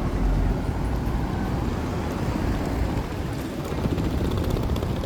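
Street traffic going by: a steady low rumble of car and bus engines and tyres, with no single event standing out.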